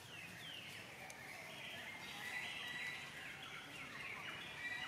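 High-pitched animal calls: repeated short chirps and squeals, several sliding downward in pitch, with longer held cries in the second half.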